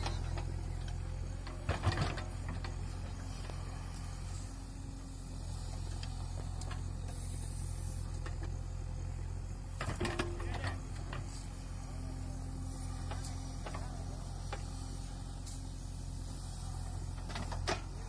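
JCB 3DX backhoe loader's diesel engine running steadily as the backhoe digs, with short clusters of metallic knocks from the arm and bucket about two seconds in, around ten seconds, and near the end.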